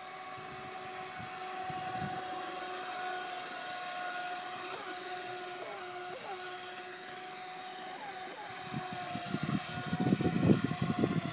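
Brushless electric motor of an RC jet boat running on the water, a steady high whine with a few brief dips in pitch as the throttle eases off and comes back. From about nine seconds in, a louder, uneven low rumbling joins it.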